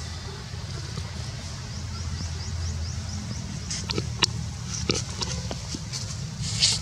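Long-tailed macaques vocalising, grunting and squealing, with a run of short repeated high chirps in the first half and several sharp clicks and knocks in the second half.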